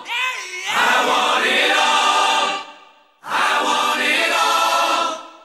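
Choral music: a choir holding sustained chords in two phrases, each fading away, with a brief silence between them about three seconds in.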